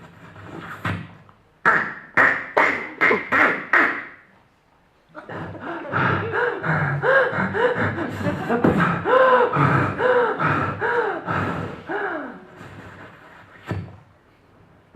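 Tennis sound effects made with a performer's voice, beatbox-style: a quick run of about six sharp percussive hits, then a longer busy stretch of mouth noises with many short rising-and-falling pitched sweeps, and one last sharp click near the end.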